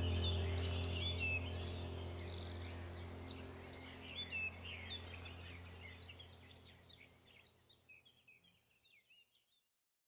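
Small birds chirping and twittering over a low steady hum, the whole bed fading out gradually to silence about seven seconds in.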